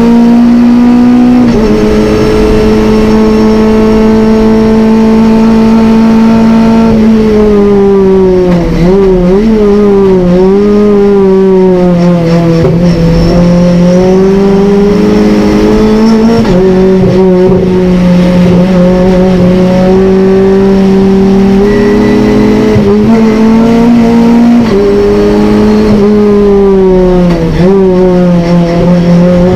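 Renault Clio Cup race car's engine running hard, heard from inside the cabin. It holds high revs in long steady stretches, and its pitch drops and climbs back several times, mostly from about seven to thirteen seconds in and again near the end.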